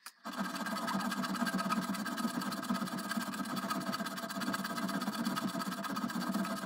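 Hand file rasping on a steel rifle barrel, cutting a dovetail notch for the front sight. The rasp runs steadily with no clear pauses between strokes, starting just after the beginning and stopping abruptly near the end.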